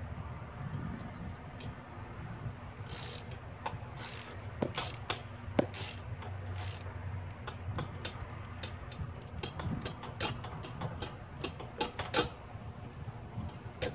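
Socket ratchet clicking in short irregular runs as it backs out a Torx 50 breather-port screw on a hydrostatic transaxle.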